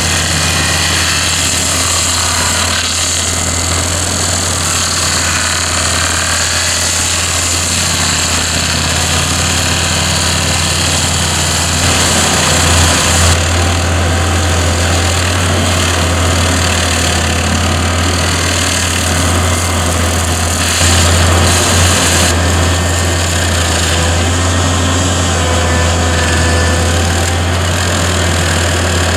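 RF-System HSF 65 hydraulic high-speed stump grinder on an excavator, chewing a tree stump into chips, over the steady deep hum of the excavator's engine running under load. The cutting adds a constant high hiss that swells briefly twice, about a third of the way in and again past the middle.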